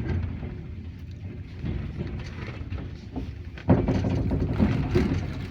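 Passenger train running along the rails: a steady low rumble with wheel clatter, turning suddenly louder about two-thirds of the way in.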